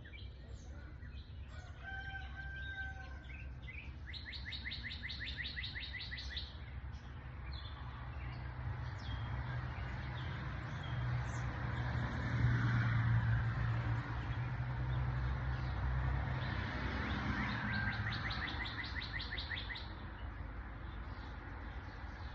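Outdoor birdsong: two fast, high trills of rapidly repeated notes, one about a quarter of the way in and one near the end, with a few short whistled notes early on. Underneath, a low rumble swells to its loudest about midway and then fades.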